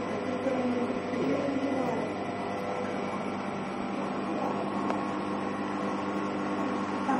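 Steady mechanical hum of indoor equipment, with faint voices murmuring in the first couple of seconds.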